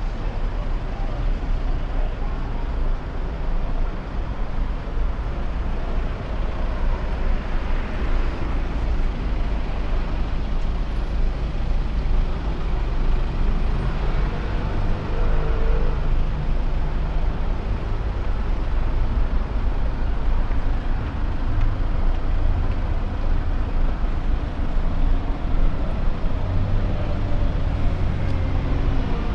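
City street traffic: cars and buses running past in a steady rumble, with engine hum coming and going.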